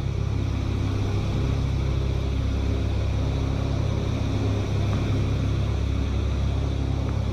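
Steady drone of piston aircraft engines, a low hum that holds the same pitch and level throughout.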